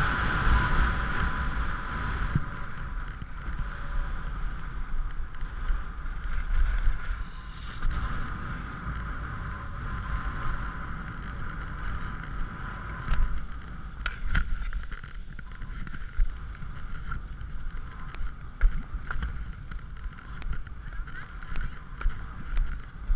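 Skis sliding over packed snow with a steady hiss, under a low wind rumble on the microphone; the hiss is stronger in the first half.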